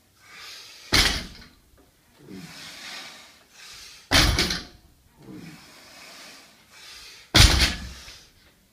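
A 190 kg barbell loaded with bumper plates dropped onto a rubber floor mat three times, about three seconds apart, as the deadlift reps are lowered. Each is a loud heavy thud with a short rattle of the plates. Hard breathing from the lifter is heard between the drops.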